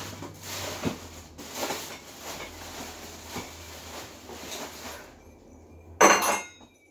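Newly installed ceiling fan running: a steady low hum under an uneven rustle of moving air. About six seconds in comes one short, loud clatter.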